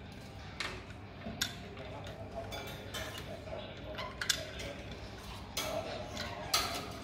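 A lorikeet's beak clicking and tapping on a plastic toy car: sharp clicks at irregular moments, some coming in quick pairs.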